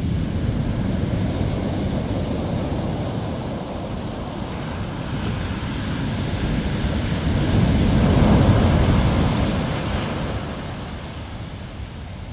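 Ocean surf breaking and washing up a sandy beach. It swells to its loudest as a wave crashes about eight seconds in, then eases.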